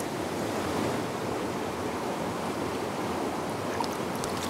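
Small stream running steadily over a shallow bed, with a few faint splashes near the end as a hand-held brown trout is eased back into the water.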